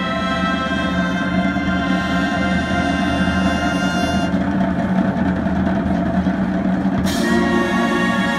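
Procession band of brass and woodwinds playing a slow funeral march, with held chords over bass drum and snare. A new loud chord comes in about seven seconds in.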